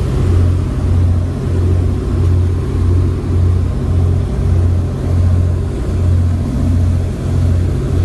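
Fishing boat's engine running steadily underway, a low hum that throbs about one and a half times a second.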